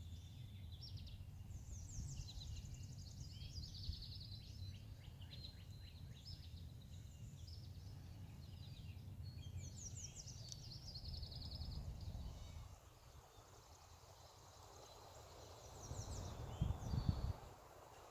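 Songbirds singing high-pitched trills and chirps over a low outdoor rumble, with a few louder low thumps near the end.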